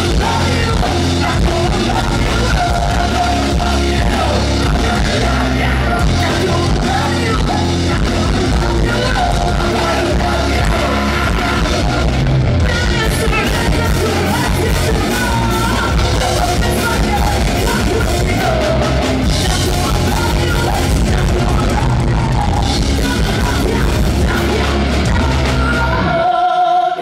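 Live heavy rock band playing loud: distorted electric guitar, bass and drum kit under shouted and sung vocals. The band stops suddenly about a second before the end.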